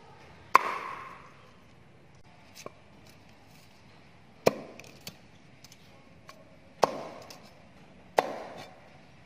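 Cleaver chopping a cauliflower on a round wooden chopping board: four sharp chops spaced one to four seconds apart, each ringing briefly, with a few light knocks between them.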